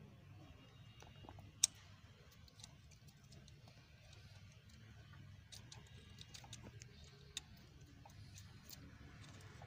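Faint, irregular clicks and ticks of hand tools on metal as the 10 mm bolt holding a Honda Accord's VTC oil control solenoid is worked loose. There is a sharp click about one and a half seconds in and another near seven and a half seconds, over a low steady hum.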